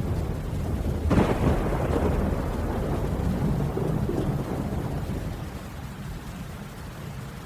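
Thunderclap in a rainstorm: a sudden sharp crack about a second in, then a low rolling rumble that fades over several seconds, over steady rain.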